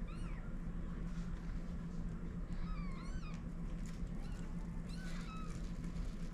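Newborn kittens mewing in thin, high-pitched cries, each rising and falling in pitch. They come in three short bouts: at the start, about three seconds in, and about five seconds in.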